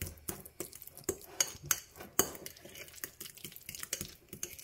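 A utensil mixing guacamole (mashed avocado with seasoning and lime juice) in a bowl: irregular clicks and taps against the bowl, several a second, thinning out in the second half.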